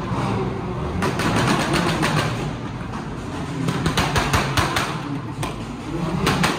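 Car engine running with a rapid, irregular crackle of sharp exhaust pops.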